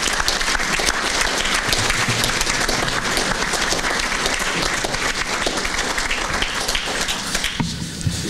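Audience applauding, many hands clapping steadily; the applause stops fairly suddenly near the end.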